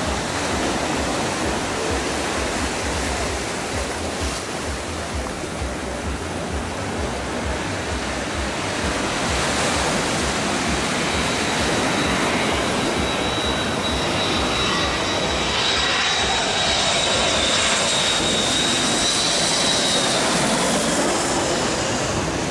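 Rear-engined jet airliner on landing approach: a steady jet rush that grows louder, with a thin high engine whine coming in about halfway through and fading near the end, over a low rumble of wind on the microphone.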